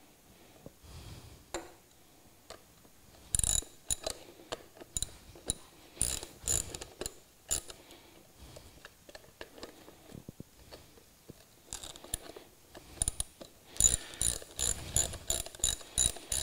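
Hand socket ratchet clicking in short runs as it snugs up the hub bolts of a balloon wheel, with pauses between strokes. The clicks come thicker and faster in the last couple of seconds.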